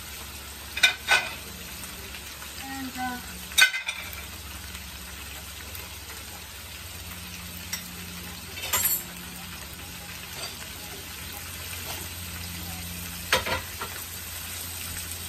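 Sliced onions, bell peppers and habanero sizzling as they sauté in a pan, with a few sharp clinks of a utensil against the pan as they are stirred.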